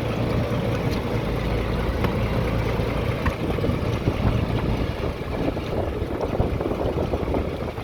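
Fishing boat's engine running steadily with a low hum.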